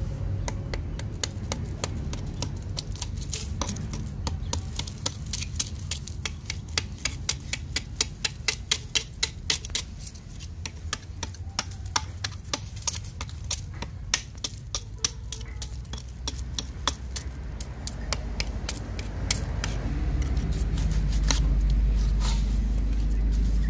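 Small hammer tapping and scraping at a cement stove body, chipping out the air opening at its base: quick light metal-on-cement taps, several a second. Near the end a low steady rumble rises underneath.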